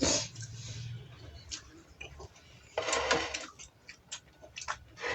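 Scattered soft clicks and ticks of eating close to the microphone, with short rustling bursts at the start and about three seconds in.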